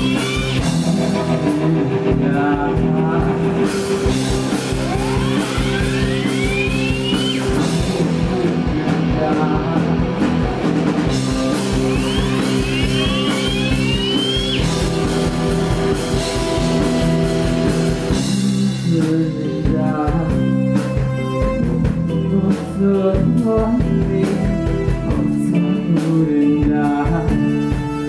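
Live rock band playing loud, with electric guitars, bass guitar and drum kit, and a few rising swooping tones over the band.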